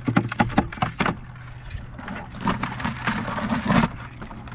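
Blue crab handled with metal crab tongs against a plastic cooler: a quick run of sharp clicks and knocks in the first second, then a scratchy rustling from about two to four seconds in.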